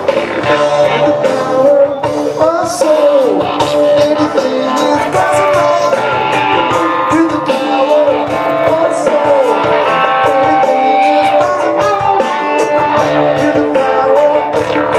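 A rock band playing live: a lead line with bending, sliding notes over drums and bass, with a rock-funk feel.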